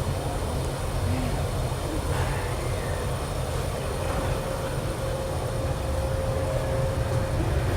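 Steady low rumble of factory-floor background noise with a faint steady hum and no distinct events.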